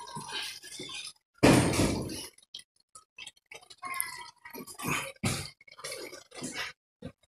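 Scattered clicks and knocks, the loudest a single sharp thump about a second and a half in, from a person walking and handling things on a hard floor.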